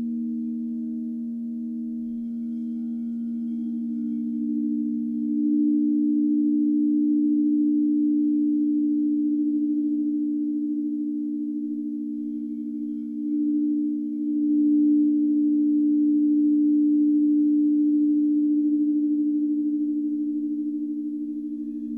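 Crystal singing bowls played with a mallet, ringing in two strong sustained low tones with fainter higher tones above and a slight wavering. The sound swells louder about five seconds in and again around fourteen seconds.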